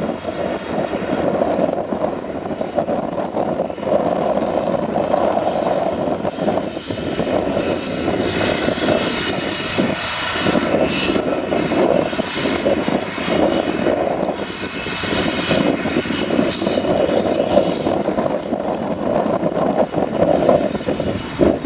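Claas Jaguar 850 self-propelled forage harvester running under load as it chops grass and blows it into a trailer, a steady loud engine-and-machinery drone with a faint whine over it. A rushing hiss swells about eight seconds in and again near fifteen seconds, mixed with the tractor running alongside.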